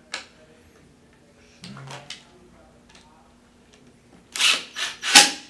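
Cordless impact driver driving a wood screw into a bamboo drawer panel in three short, loud bursts near the end, after a few light knocks of the panels being handled.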